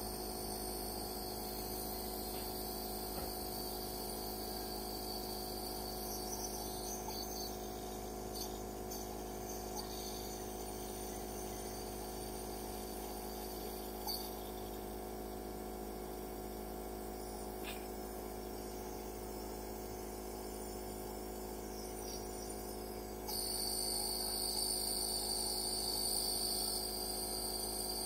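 Nebulizer compressor running steadily: an even hum with a high whine above it, and the high part gets suddenly louder near the end.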